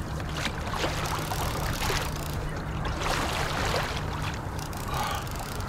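Water splashing and rushing along a fishing kayak's hull as it moves, over a low steady hum.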